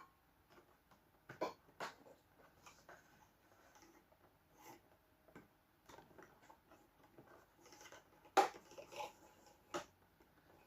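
Scattered light clicks and knocks of hands working electrical cable and small tools at a wiring board, with a sharper knock about eight seconds in.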